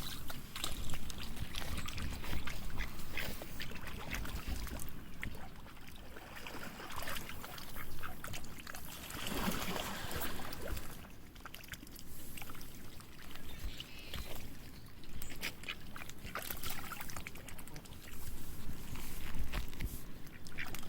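Ducks quacking and calling at the water, with splashing and dabbling sounds.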